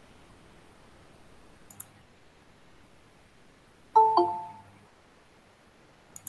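Google Meet's join-request notification chime: a short two-note tone, the second note lower, about four seconds in. A sharp mouse click comes before it and another near the end as the request is admitted.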